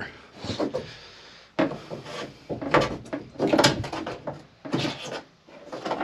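Thin lauan plywood bunk panel being worked loose from its staples by hand: several short, irregular bursts of wood noise.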